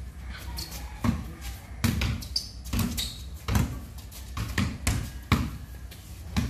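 Basketball dribbled on a concrete surface: a string of bounces at an uneven pace, about one to two a second.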